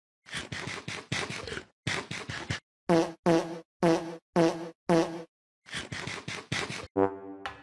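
Cat making short, buzzy pitched sounds over and over, some in quick runs and some about three a second, with brief pauses between runs.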